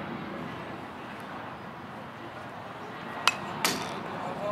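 A pitch meeting a metal baseball bat and the catcher's mitt: two sharp knocks about a third of a second apart, the second louder with a short metallic ring.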